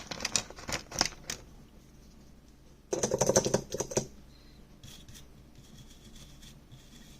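Rapid small clicks and scratching from cleaning the board after its charger-port pads are tinned. They come in two bursts: one in the first second and a denser, louder one about three seconds in, with faint scratching after.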